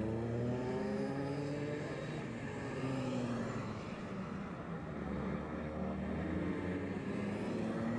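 Two-stroke racing kart engines running on track, several engine notes overlapping and rising and falling in pitch as the karts accelerate and lift off.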